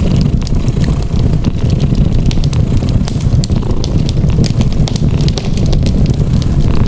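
A cat purring low and steady, mixed with a wood fire crackling in many sharp little pops.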